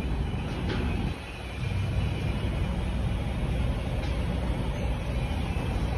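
Steady low rumble of idling vehicle engines, dipping briefly a little over a second in.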